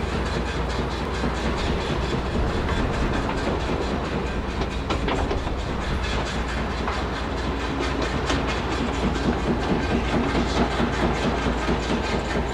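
Industrial machinery running continuously amid city background noise: a heavy low rumble with dense metallic clattering and a faint steady hum, getting slightly busier in the second half.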